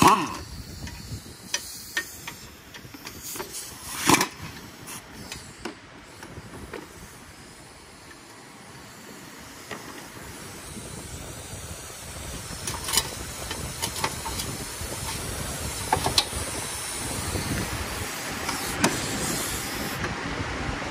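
A handheld power wrench runs in two short bursts, at the start and about four seconds in, backing out 12 mm bolts, with a few lighter clicks later. A steady hiss grows louder through the second half.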